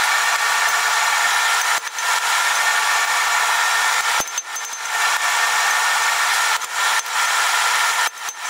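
Steady whirring hiss of a running machine, with a few steady high tones through it, dipping briefly about five times.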